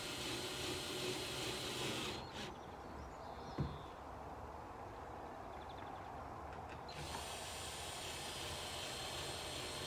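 Cordless drill running into the wooden cladding boards of a shed over a steady background hiss, with one sharp knock about three and a half seconds in.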